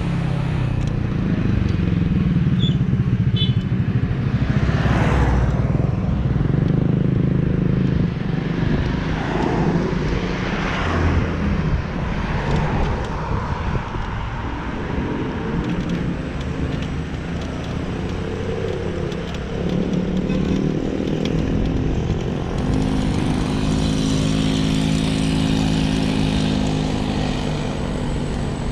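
Road traffic heard from a moving electric scooter: a low rumble of wind on the microphone, with cars passing, and a vehicle engine running close by with a steady hum near the end.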